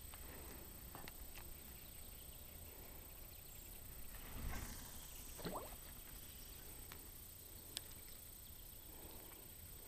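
Light wind rumbling on the microphone, with faint clicks and handling noises from a fishing rod and spinning reel. A brief rustle comes about four and a half seconds in, followed by a short falling squeak, and a single sharp click near the end.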